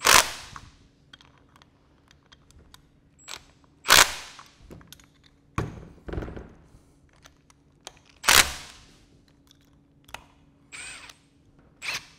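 Cordless impact driver run in short bursts, three loud ones about four seconds apart, tightening the nuts on a metering valve's top cover bolts one after another.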